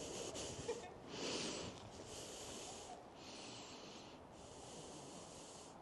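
A person breathing hard while walking downhill in snow: a faint hiss roughly once a second.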